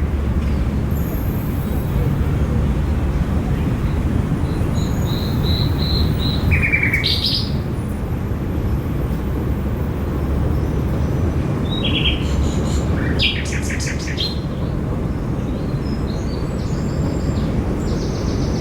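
Small birds chirping in short scattered phrases: a quick run of high notes a few seconds in, more chirps about two-thirds through, and faint high notes near the end. Under them runs a steady low rumble of background noise, which is the loudest part.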